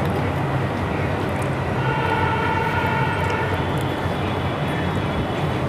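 Steady outdoor urban background noise with a low hum. About two seconds in, a held high-pitched tone with overtones sounds for a second or two, then fades.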